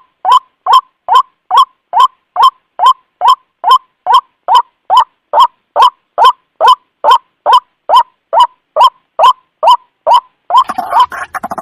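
White-breasted waterhen (ruak-ruak) calling: a fast, very even series of short notes, about two and a half a second, as used to lure other waterhens. Near the end the calls become more irregular, with noise mixed in.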